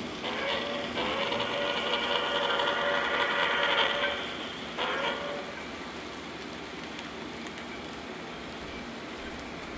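Model New York Central steam locomotive's whistle sounding a chime-like steam whistle from its onboard sound system: one long blast of about three and a half seconds, then a short blast about half a second later. The train running on the track makes a steady rumble underneath.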